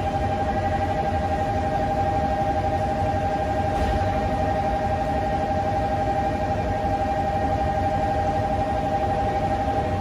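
Station platform departure bell ringing steadily as a rapid two-tone electronic trill, the signal that the train's doors are about to close. It cuts off near the end.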